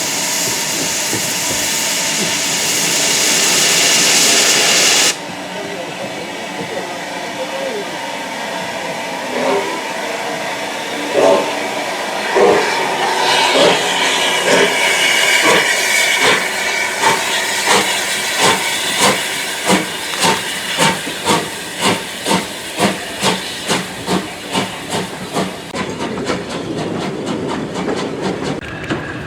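Steam locomotive blowing off a loud steady hiss of steam that cuts off suddenly about five seconds in. Then a steam locomotive starting away, its exhaust beats quickening from about one a second to about two a second as the train gathers speed.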